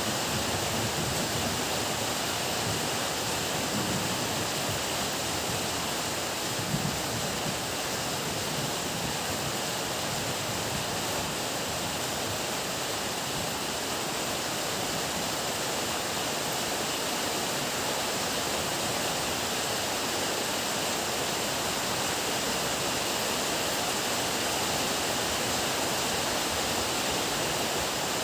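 Heavy rain pouring down steadily as an even, unbroken hiss, with a low rumble underneath during the first several seconds.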